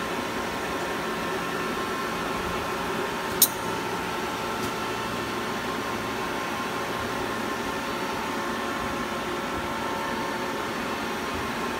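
Nakamura TW-10MM twin-spindle CNC turning center running a program: a steady mechanical hum with a faint high whine. One sharp click about three and a half seconds in.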